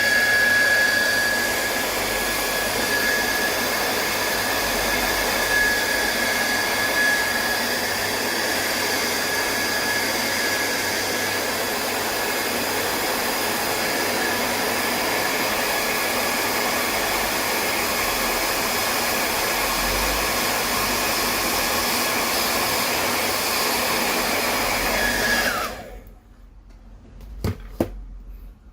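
Hair dryer blowing steadily with a high whine, switched off about 26 seconds in, its whine dropping away as it stops. A couple of short clicks follow near the end.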